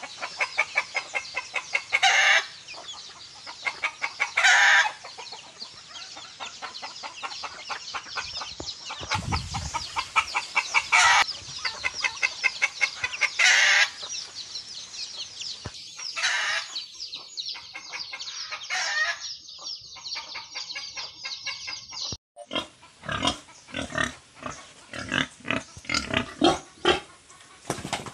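A rooster calls loudly several times, short crows and clucks, over a steady fast ticking in the background. About three-quarters of the way through the sound cuts and a pig grunts in short irregular bursts.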